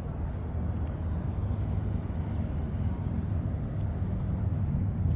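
Jet ski engine running with a steady low rumble, slowly growing louder as it nears.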